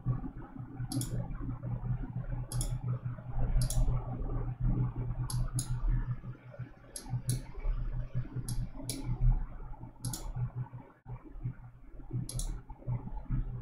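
Computer mouse clicking: a dozen or so sharp clicks at irregular intervals, some in quick pairs, over a steady low hum.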